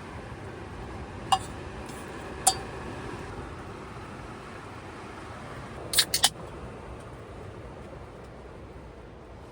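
A few sharp, light clicks of small hard objects knocking together over a steady rushing background noise: two single clicks, then a quick cluster of three about halfway through.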